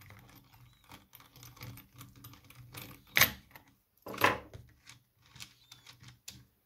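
Small metal tool clicking on the nut and plastic housing of a cordless mini chainsaw while its guide guard is undone and lifted off by hand: a run of light clicks and taps, with two louder clacks about three and four seconds in.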